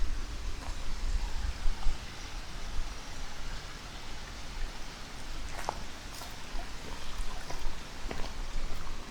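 Mountain valley stream running with a steady rush of water, with a few faint footsteps on the trail.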